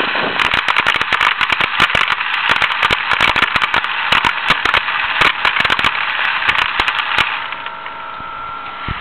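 Compressed air from an air-compressor hose rushing through a homemade soda-bottle airsoft gun, spraying BBs in a fast, irregular clatter that 'really hails'. The clatter of BBs stops about seven seconds in while a weaker air hiss goes on.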